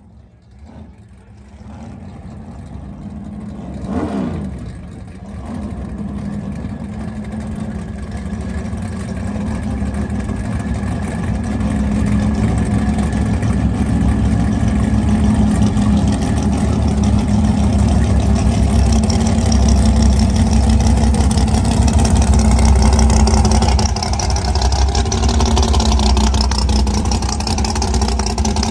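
Drag race car engine running loudly, building in level over the first dozen seconds and then holding as a steady low rumble. A brief falling whine comes about four seconds in, and a rising hiss joins in the second half.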